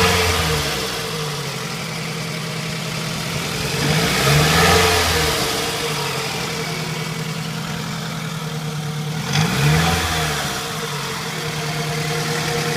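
2005 Scion tC's 2.4-litre four-cylinder engine idling, blipped up and back down three times, about every five seconds. A rough noisy wash rises with each rev: the grinding noise the car makes on a cold start.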